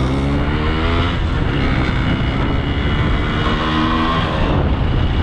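Yamaha RX 135's two-stroke single-cylinder engine pulling the motorcycle along under way. The pitch climbs in the first second as it accelerates, then holds fairly steady with a further slight rise near the end.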